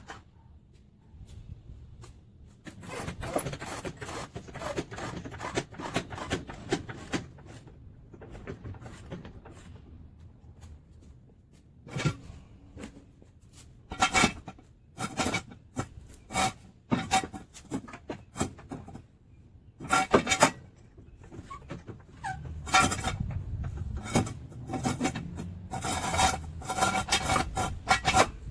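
Hand ratchet wrench clicking in repeated short bursts, with ringing metal clinks of tools, while working on the bolts of a car's engine mount.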